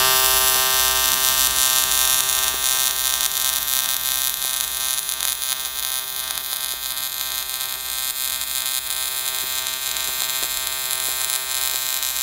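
AC TIG welding arc on 1/8-inch aluminum, buzzing steadily at a fixed 125 amps set by a trigger switch with no pedal control. The arc strikes abruptly at the start.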